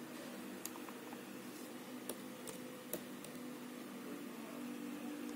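A few sharp clicks at a computer, four in about two seconds, over a low steady electrical hum.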